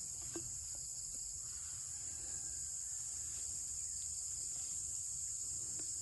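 Steady high-pitched chorus of crickets, with a low rumble underneath and a few faint clicks.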